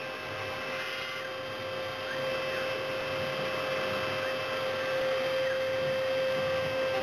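CNC milling machine running: a steady spindle whine over a noisy hiss, getting slightly louder about two seconds in.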